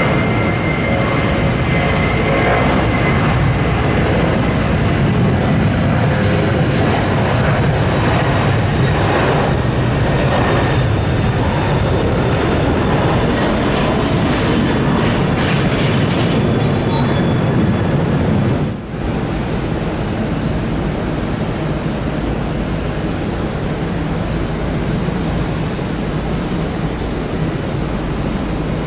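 Boeing 777-200ER jet engines at takeoff thrust: a loud, steady roar through the takeoff roll and climb-out, with one brief drop in level about two-thirds through.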